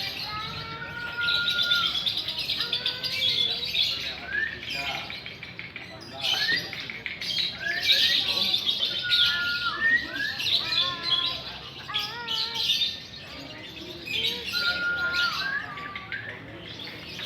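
Several lovebirds chattering in long, high trills that come in bouts of a few seconds, with short clear whistled notes mixed in.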